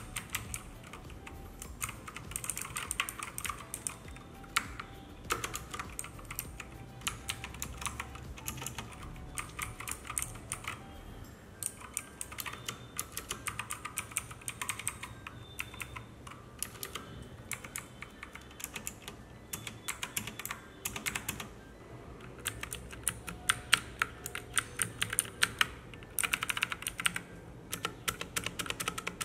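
Typing on a Cosmic Byte CB GK 12 mechanical keyboard with clicky blue Jixian switches: rapid keystroke clicks in bursts, with short lulls between runs.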